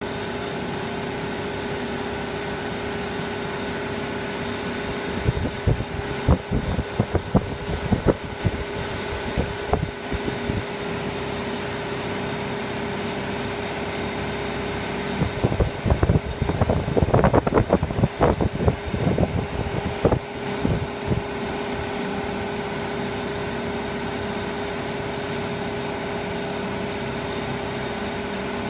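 Spray booth ventilation fan running steadily, a constant rushing hum with several held tones. Two spells of loud, irregular knocks and rustling break over it, about five seconds in and again around the middle.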